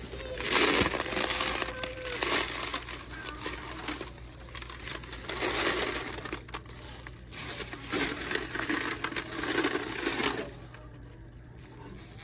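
Loose quarters pouring and rattling out of a gumball machine's coin compartment, in several bursts of a second or two, with a quieter stretch near the end.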